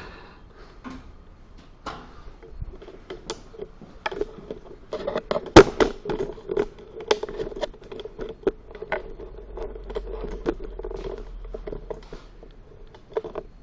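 Footsteps and handling knocks on a concrete floor: an irregular run of sharp clicks and knocks, with one loud knock about five and a half seconds in.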